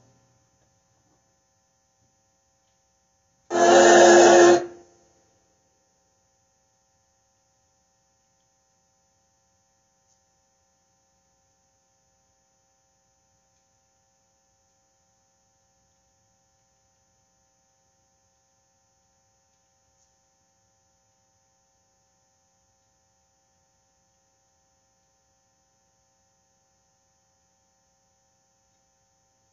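Faint steady electrical hum with a high thin whine over near silence. About three and a half seconds in, one loud burst of sound lasts about a second and cuts off abruptly.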